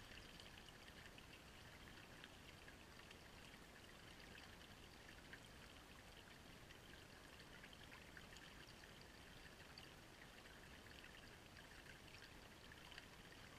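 Shallow creek water running over stones, a faint steady trickle.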